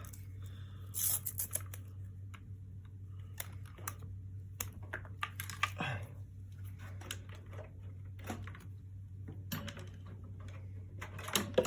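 Scattered, irregular clicks and clacks from an Akko ACR Pro Alice Plus mechanical keyboard with crystal switches, handled and its keys pressed, over a steady low hum.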